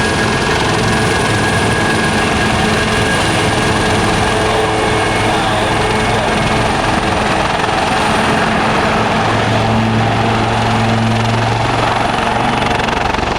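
Two Royal Navy AW159 Wildcat helicopters hovering low, their rotors and twin turboshaft engines running loud and steady with a deep rotor hum and a thin high whine. The low rotor hum swells from about nine seconds in.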